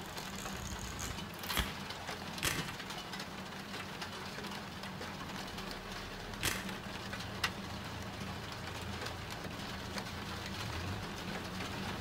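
A steady low hum under an even hiss, with four sharp clicks spread through it.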